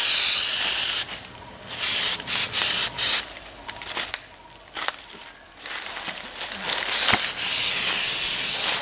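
Aerosol wound spray hissing as it is sprayed onto an elephant's wounds: a long spray that stops about a second in, a few short squirts around two to three seconds in, then a longer spray through the second half.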